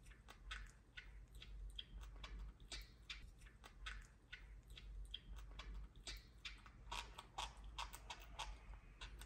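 A baby monkey eating noodles: faint chewing and lip-smacking, many small irregular clicks.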